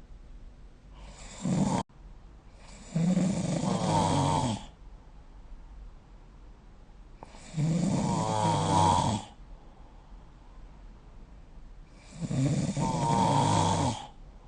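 A sleeping person snoring: three long snores about four to five seconds apart, with a shorter one about a second in.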